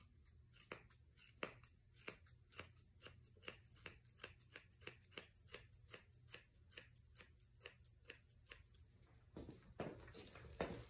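Grooming scissors snipping a dog's hard coat steadily, about three faint snips a second.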